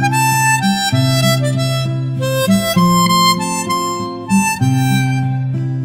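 Background music: held chords that change about once a second, with a melody line above them.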